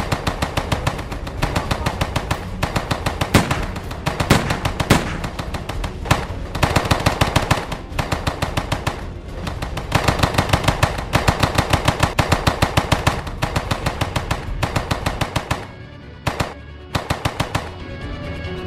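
Repeated bursts of rapid automatic gunfire, about ten shots a second, each burst lasting a second or two with short gaps and a few louder single shots among them, over background music. The firing stops just before the end, leaving the music.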